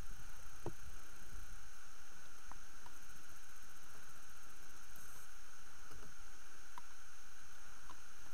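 Steady hiss with a faint high whine, the camera's own recording noise, with a low rumble in the first second or so and a few faint clicks of handling in an inflatable boat.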